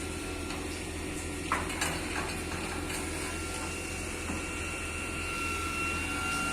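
Concrete boom pump truck's engine running steadily, with a thin steady whine over it and a few sharp metallic clanks about one and a half to two seconds in.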